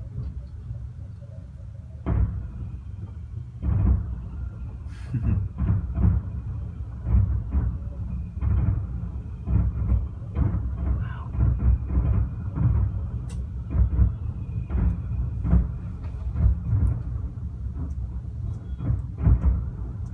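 Fireworks exploding: a dense, irregular run of low booms, sometimes several a second, starting about two seconds in.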